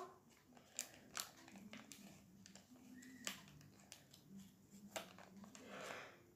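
Near silence: room tone with a few faint, short clicks and a soft breath near the end.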